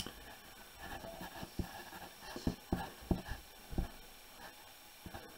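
Pencil writing on paper: faint scratching strokes with about half a dozen short taps as the pencil meets the page, most of them in the middle of the stretch.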